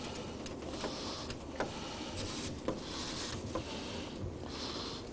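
A few faint clicks and light knocks over a steady low hiss, like small handling sounds in a kitchen.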